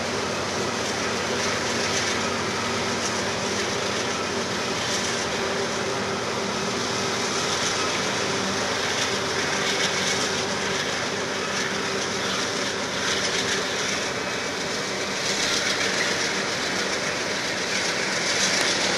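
Union Pacific coal train's cars rolling across a steel girder railroad bridge: a steady rumble and rattle of wheels on rail, with scattered brief louder clacks.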